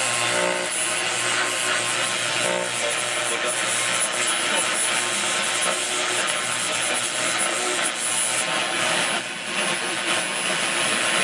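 Hallicrafters SX-28A tube shortwave receiver giving out a steady hiss of static as its dial is tuned between stations, with a thin high whistle held over it. A pitched signal breaks through briefly about half a second in and again around two and a half seconds.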